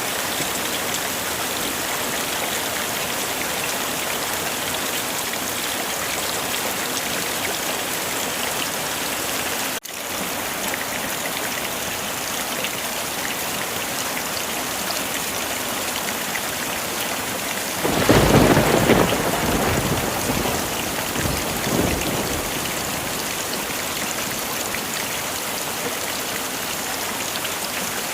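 Heavy rain falling steadily, with one clap of thunder about two-thirds of the way through that rumbles and fades over a few seconds. A momentary break in the rain sound comes about a third of the way in.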